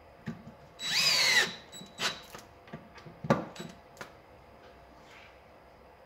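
Cordless drill-driver driving a self-tapping screw through a metal bracket into a stone resin basin: the motor runs once, briefly, pitch rising then falling. A few sharp clicks and knocks follow.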